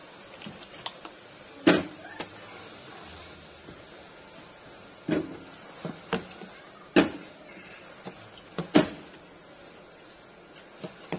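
Wooden spatula stirring vegetables in a metal cooking pot, knocking against the pot's sides and rim in irregular sharp knocks, several seconds apart.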